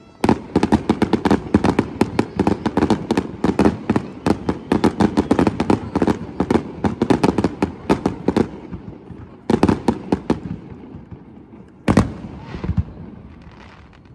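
Fireworks going off in a rapid barrage of bangs and crackles for about eight seconds. A short cluster of shots follows, then a single loud bang about twelve seconds in that echoes away.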